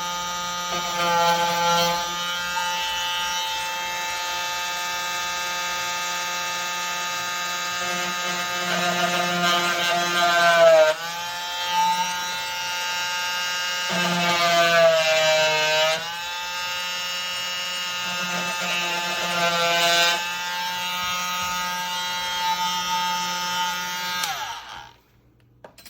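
Cordless oscillating multi-tool running and cutting into a wooden door jamb; its pitch sags twice under load and recovers. It shuts off near the end.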